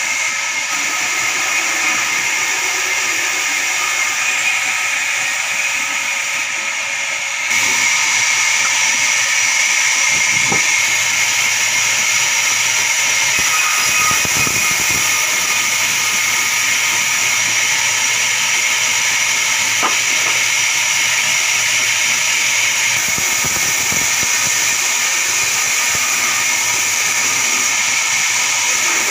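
Large vertical sawmill band saw running, a steady loud hiss with a high whine as planks are ripped on it; about seven and a half seconds in it gets louder and stays so.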